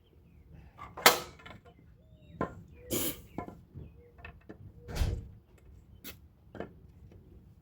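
A string of separate sharp knocks and clatters, the loudest about a second in and a heavier thud about five seconds in.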